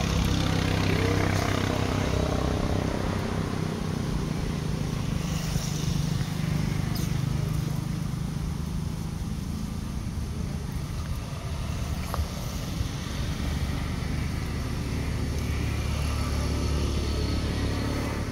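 Steady low hum of a running engine, with a few faint clicks.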